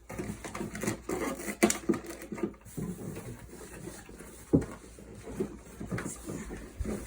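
Cardboard box and packaging being wrestled with as a large toy is pulled out: irregular scraping and rustling with clicks and knocks, two sharper knocks about one and a half and four and a half seconds in.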